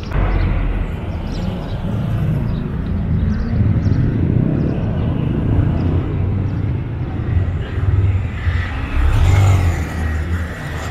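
Street traffic: motor vehicles driving past with a low engine rumble, one passing closer and louder near the end.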